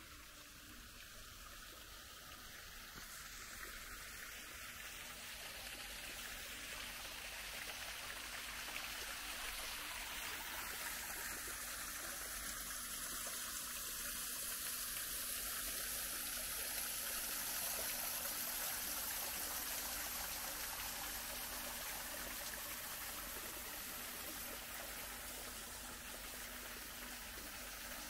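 Running water, like a small stream or cascade, a steady rush that slowly grows louder, peaks about two-thirds through, then eases a little.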